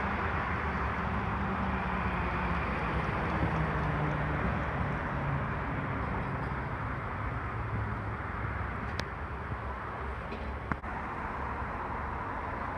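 C-Train light rail train, a Siemens-Duewag U2 car, pulling into the platform and braking to a stop. Its low hum slowly falls in pitch as it slows, over a steady rumble of wind and street noise. Two sharp clicks come near the end.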